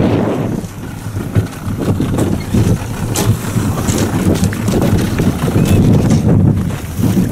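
Wind buffeting the microphone in an uneven low rumble aboard a small boat on open sea, with water noise beneath it.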